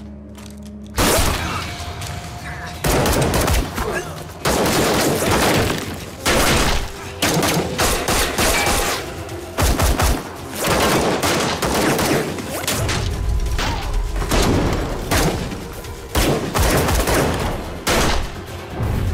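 Gunfight: pistols fired again and again in quick clusters of shots, starting about a second in and going on to the end.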